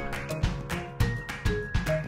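Background music with a steady beat and short pitched instrumental notes.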